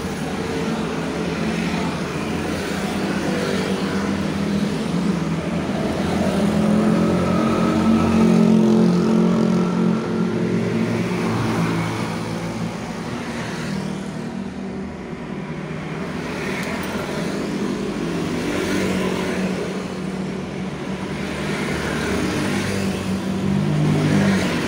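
Road traffic: cars driving past on a busy road, a continuous engine and tyre drone that swells and eases as vehicles go by.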